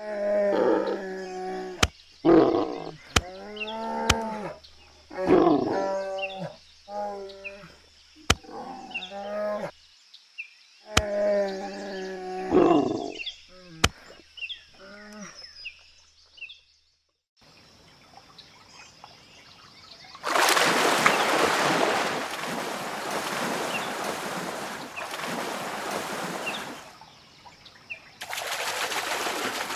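Animal calls: a run of short pitched calls, each rising and falling. After about twenty seconds a steady rushing noise takes over, broken briefly near the end.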